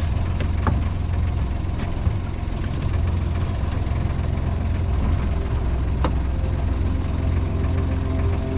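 Outboard motor on a sailboat's stern idling steadily, with a couple of sharp knocks over it.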